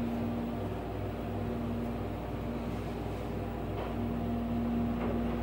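Schindler in-ground hydraulic elevator's submersible pump motor running with a steady hum pitched at B-flat. It is heard muffled through the cab, with a slow throb beneath it. The hum fades back a little in the middle and comes up again about four seconds in.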